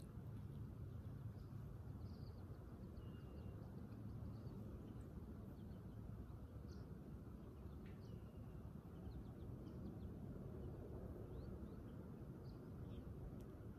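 Faint outdoor ambience: scattered distant bird chirps and short whistles over a steady low background rumble.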